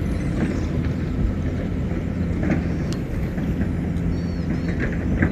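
Steady low hum of a distant engine, with a few faint clicks and a bird chirping briefly about four seconds in.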